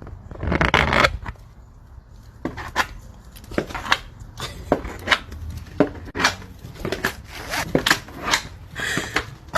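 A series of irregular sharp clicks and knocks, with a short rustling burst about half a second in.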